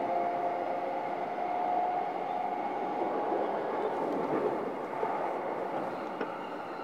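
Running noise heard inside the car of a JR East E233 series electric train (motor car MoHa E233-7415) between stations: a steady rumble of wheels on rail. A thin steady whine fades out about two seconds in, and a few faint clicks come later.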